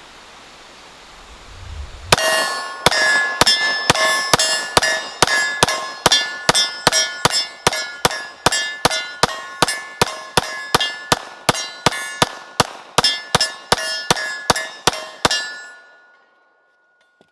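A 9mm Glock P80 pistol fired in a steady string of about thirty shots, two to three a second, each with a ringing metallic clang as rounds strike a steel target. The gun cycles every round without a malfunction.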